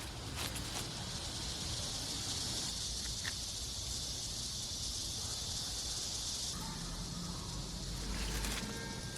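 Steady, high-pitched chorus of insects buzzing outdoors. It thins out about two-thirds of the way in, and a low rumble comes in near the end.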